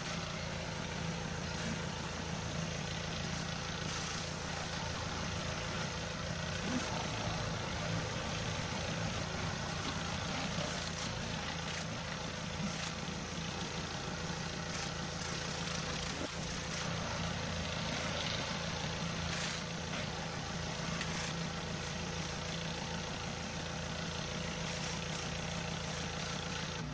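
Pressure washer running steadily, its motor humming low under a steady hiss of water spray.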